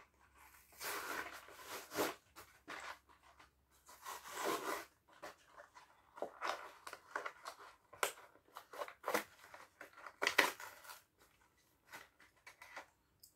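A Mattel Mini Racers toy 3-pack being cut and torn open: irregular rasps of tearing card and plastic, crinkling and sharp clicks that come and go in short bursts.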